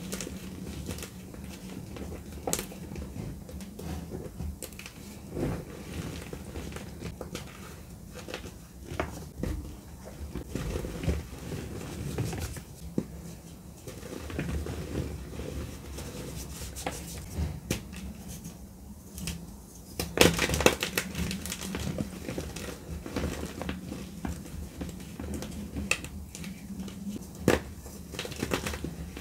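Hands squeezing and crumbling blocks of dry gym chalk, a continuous run of soft crunches and crackles as the chalk breaks up. About twenty seconds in comes a louder burst of crunching, and there is one sharp crack near the end.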